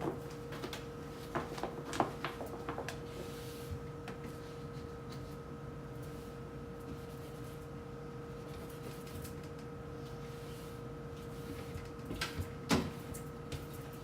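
Scattered knocks and clatters of things being handled and set down, in a cluster in the first few seconds and again about twelve seconds in, over a steady electrical hum.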